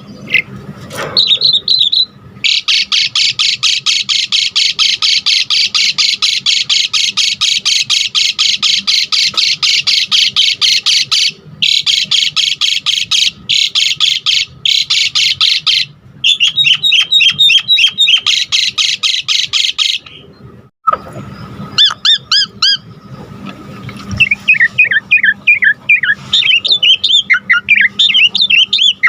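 Asian pied starling (jalak suren) singing: a long, fast, rattling chatter of high notes with a few brief breaks, then varied whistles and sliding notes near the end.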